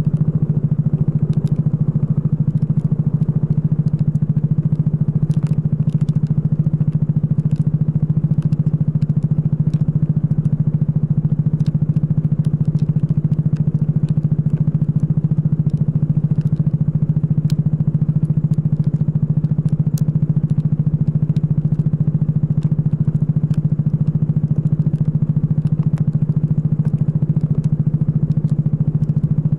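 Racing kart engine running at a steady, unchanging pitch, with scattered light ticks over it.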